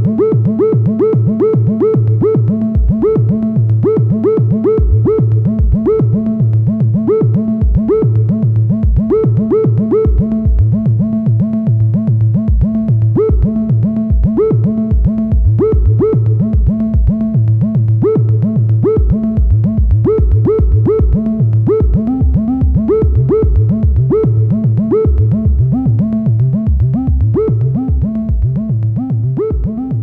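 Electronic music: repeating short synthesizer notes with swooping pitch over a pulsing synth bass that comes in about three seconds in.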